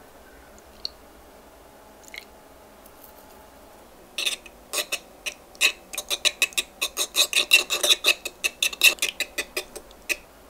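Small metal wire whisk beating eggs and milk in a stoneware bowl: a quick run of clicking strokes against the bowl that starts about four seconds in and lasts about six seconds, at around four to five strokes a second, with a couple of single clicks before it.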